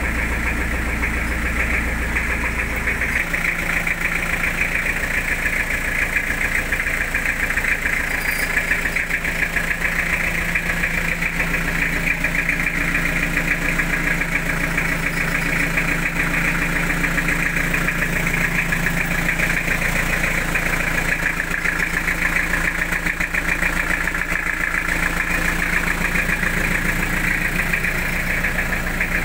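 Toyota Hilux LN106's 2.8-litre 3L four-cylinder diesel idling steadily while it warms up, with an even diesel clatter.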